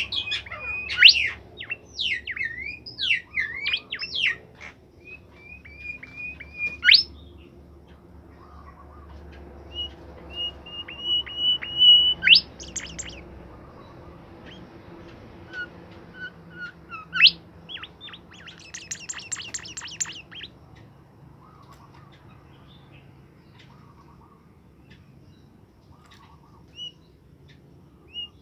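A caged bimoli songbird singing actively, in rapid chirps, short whistled phrases and a buzzy trill, with a pause of several seconds in its song near the end.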